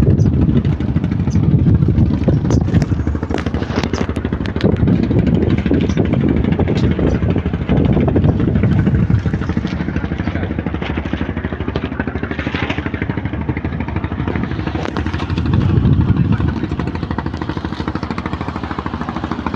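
Small boat engine running steadily.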